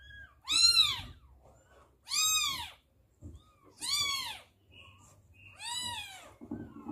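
Newborn kitten mewing: four high, thin cries, each rising and falling in pitch, coming about every second and a half to two seconds.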